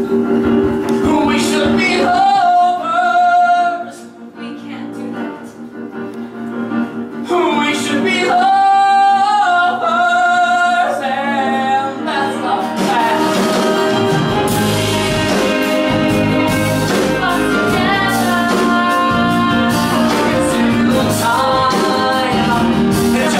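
Live singing with instrumental accompaniment: long held notes with vibrato, a quieter stretch a few seconds in, then the accompaniment grows fuller and steadier about twelve seconds in.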